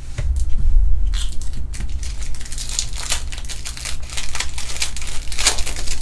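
Baseball card pack wrapper being torn open by hand, crinkling and tearing in a run of sharp crackles, loudest near the end, after a dull low bump as the pack is picked up at the start.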